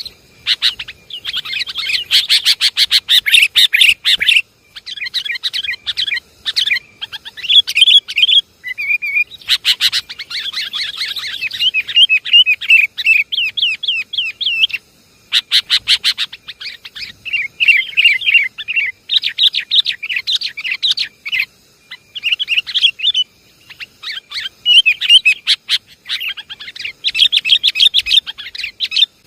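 Sooty-headed bulbuls (kutilang) chattering noisily: a bird-lure recording of rapid, busy chirps in bursts of a few seconds with short gaps, with sharp ticking notes mixed in.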